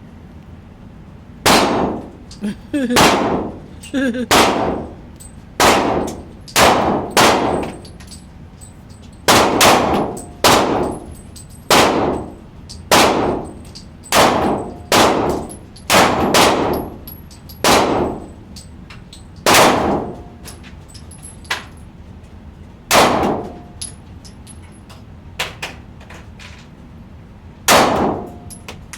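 A string of about twenty gunshots at a shooting range, fired singly and in quick pairs with irregular pauses, each a sharp crack with a ringing tail.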